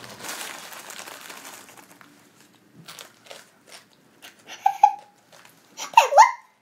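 A plastic instant-noodle packet crinkling as it is shaken, then dry instant noodles crunching as they are eaten, with two short whimpering cries near the end.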